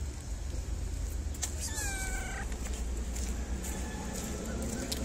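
A stray cat meows once, a short call about two seconds in, and begins a second meow right at the end, over a low steady rumble.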